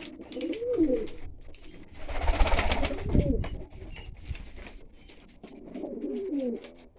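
Old Dutch Capuchine pigeons cooing in wavering phrases, once near the start and again near the end. A louder rushing, rustling noise comes about two seconds in, and small ticks and taps are scattered throughout.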